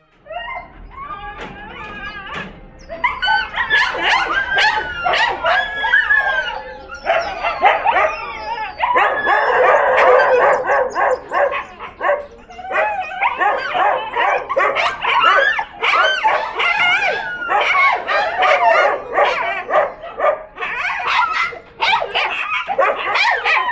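Many kenneled dogs howling and whining together in an overlapping, wavering chorus of cries, with barks and yips mixed in; it starts abruptly and keeps up loudly throughout.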